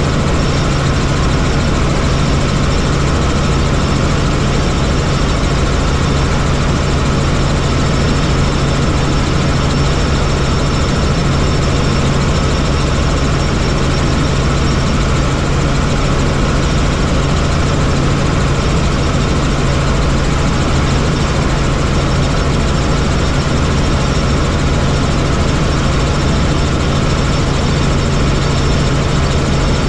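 Helicopter in flight: a loud, steady drone of engine and rotor with a strong low hum and a faint high whine, unchanging throughout.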